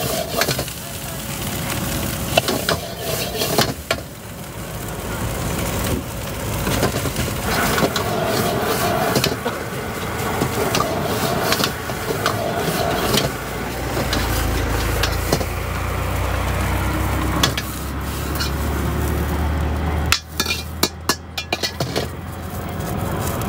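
Street-food stall cooking: repeated metal clatter of a spatula on a wok and pan over sizzling, with voices in the background. A low rumble comes in for several seconds in the middle.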